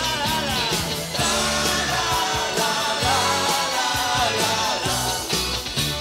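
Pop-rock band playing live, with a male lead vocal singing over a steady drum beat.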